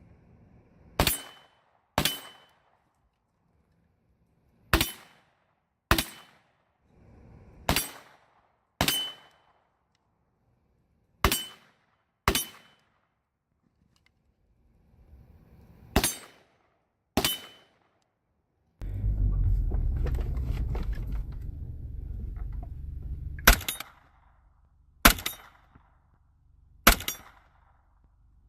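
9mm gunshots fired as paired shots about a second apart, five pairs with pauses of a few seconds between them. A loud low rumble starts about two-thirds of the way through, followed by three more single shots.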